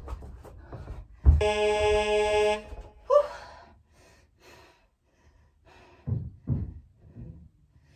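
A steady electronic buzzer tone lasting about a second and a half, starting just over a second in: an interval timer marking the end of a 30-second work interval. Short thuds come just before it and again about six to seven seconds in, with breathing between.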